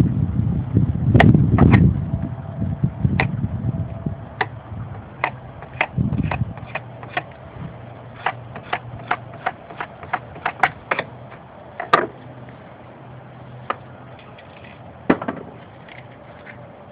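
A run of short, sharp clicks or taps, uneven in spacing and two to three a second at their busiest, over a low rumbling noise that dies away in the first few seconds.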